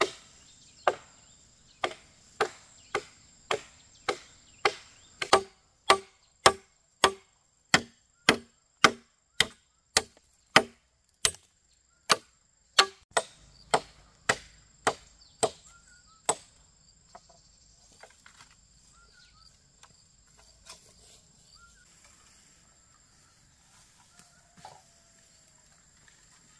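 Machete slashing through grass and weeds in steady repeated strokes, about two chops a second. The chopping stops about sixteen seconds in, leaving only faint rustling.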